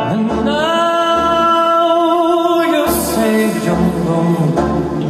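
A man singing one long held note with vibrato into a microphone over instrumental accompaniment with a bass line. About three seconds in the voice stops and the accompaniment plays on, marked by a crash.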